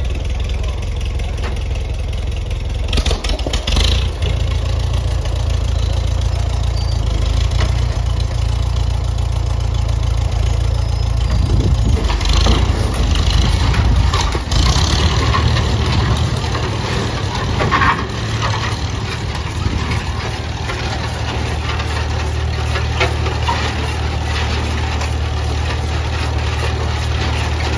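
Farmall M tractor engine running steadily, then pulling under load from about twelve seconds in as it tows a 1929 John Deere GP to turn its two-cylinder side-valve engine over for a tow start. The engine is louder and noisier while pulling, with a few sharper bursts.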